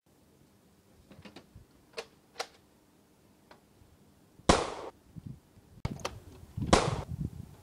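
Two loud, sharp gunshot-like bangs about two seconds apart, each ringing out briefly, with a few faint clicks before them.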